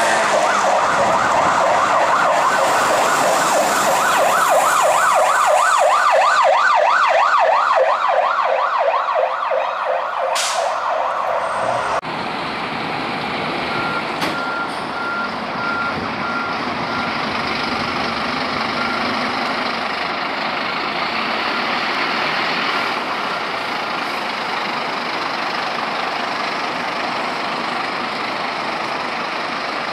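An emergency vehicle siren on a fast yelp, rising and falling about three times a second, that stops abruptly about twelve seconds in. Then comes the steady noise of a fire engine's diesel engine and traffic, with a run of short, evenly spaced beeps at one pitch through the middle.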